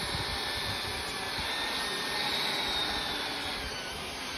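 A 64 mm electric ducted fan (XFly 2840 motor on 4S) runs static at high throttle in a hand-held foam RC jet, giving a steady high-pitched whine over a rushing of air. This is a ground run-up after the fan lost power in flight, which the pilot puts down to a drained battery.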